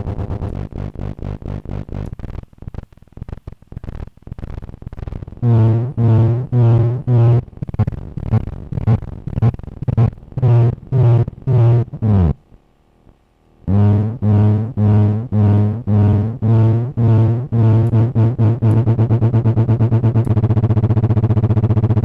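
Optical feedback tone from a Tektronix 2225 oscilloscope and a Lite2Sound BC photodiode amplifier: a distorted, buzzing low electronic tone. It comes in pulses that follow the beam sweeping across the screen and under the graticule, first as a fast flutter, then at about one to two pulses a second. About halfway it cuts out briefly with a falling pitch, then returns in pulses that speed up into a steady buzz near the end.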